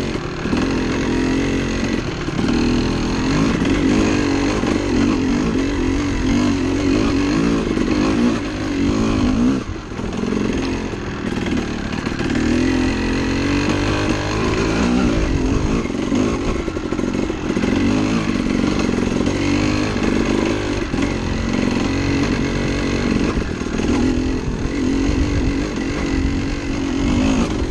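Honda dirt bike engine running under the rider, its revs rising and falling with the throttle over the trail. The sound drops off briefly about ten seconds in, then picks up again.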